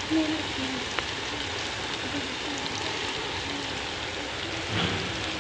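Sliced onions and green chillies sizzling in hot ghee in an aluminium pot, a steady frying hiss, with one faint click about a second in.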